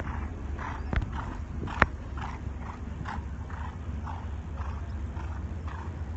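Horse cantering on a sand arena, its strides sounding in a steady rhythm. Two sharp knocks come about one and two seconds in, the second louder.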